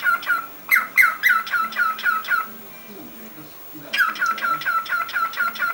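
Cockatiel calling in quick runs of short repeated chirps, about five a second, each dipping down onto the same note. The chirping stops for about a second and a half midway, then starts again.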